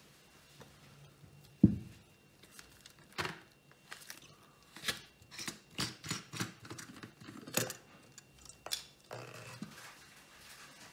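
Gloved hands handling kitchen things on a cloth-covered table: a dull thud about a second and a half in, then a string of short clicks, knocks and rubbing as a glass tumbler is set down and the plastic blender cup is picked up.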